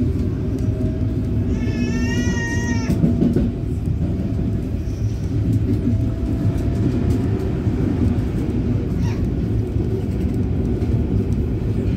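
Paris Métro line 9 train (MF01 stock) running, heard from inside the car: a steady low rumble with a faint motor whine slowly rising in pitch. About two seconds in, a high, wavering tone sounds for just over a second.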